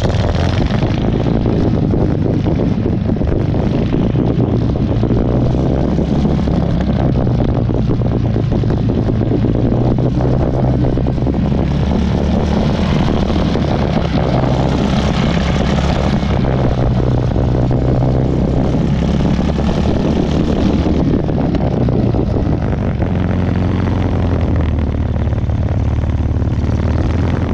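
Two-wheel walking tractor's engine running as it drives along, heard close up from the driver's seat, its pitch shifting slightly up and down.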